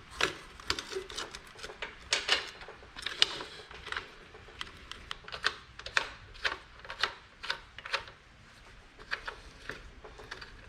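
Irregular sharp metal clinks and knocks as band saw parts and hand tools are handled and fitted, one to three a second, with a few louder knocks.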